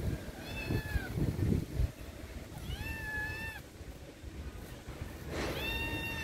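Tabby kitten meowing three times, thin high-pitched calls about two to three seconds apart. Some low thumping and rustling between the first two meows.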